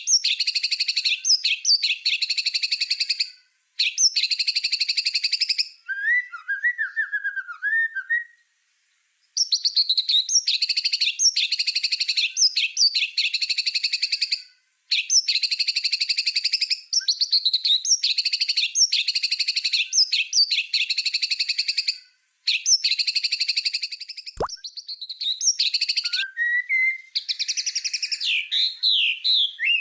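White-rumped shama (murai batu) singing its rapid-fire 'tembakan' phrases: long runs of fast, harsh, repeated high notes broken by short pauses, with softer, lower twittering in between.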